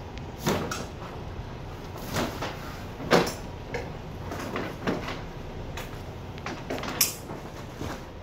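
A heavy trailer tarp being pulled and handled on a covered-wagon trailer's frame: irregular rustles, scrapes and knocks, the loudest about three seconds in.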